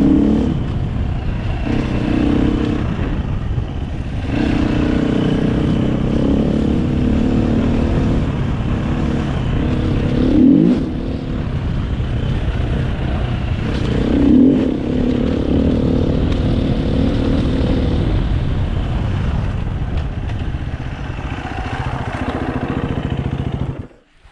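Dirt bike engine running under constantly changing throttle, its pitch rising and falling, with two short sharp revs about ten seconds in and again a few seconds later. The sound cuts off suddenly near the end.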